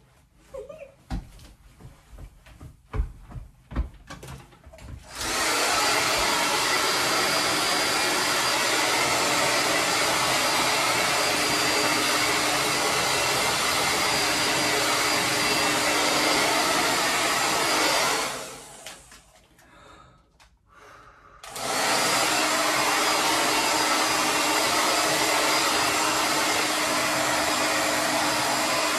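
Handheld hair dryer blowing, switched on about five seconds in and running steadily, cut off for about two seconds near two-thirds of the way through, then running again. A few soft knocks come before it starts.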